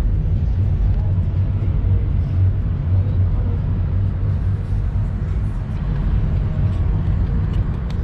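Car driving along: a steady low rumble of engine, tyres and wind, heard from inside a Ford Mustang convertible.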